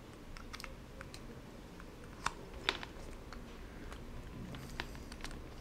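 Light clicks and taps of a Starlink cable plug being handled and fitted into a small metal cable adapter. Two sharper clicks come a little over two seconds in, about half a second apart.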